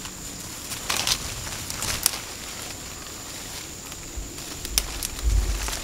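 Leaves and thin branches rustling as leafy foliage is grabbed and pulled by hand, with a few sharp twig cracks and a low rumble near the end.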